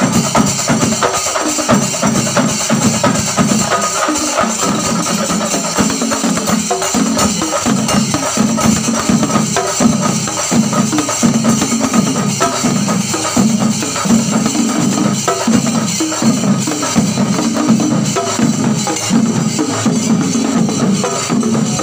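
A chenda melam: a large ensemble of chenda drums beaten with sticks in a fast, dense, continuous rhythm.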